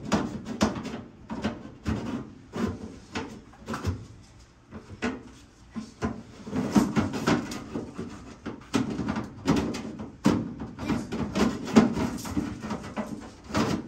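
Kitchen clatter: irregular knocks and clicks of utensils and cookware being handled, thinning out briefly around five seconds in.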